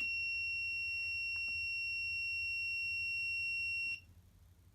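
Small alarm siren on a fire alarm board, set up as a tornado siren, sounding one steady high-pitched tone for about four seconds and then cutting off sharply.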